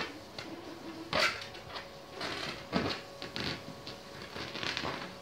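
Hands tapping and brushing against a large inflated punching balloon: a handful of light, irregularly spaced taps, with a faint steady hum beneath.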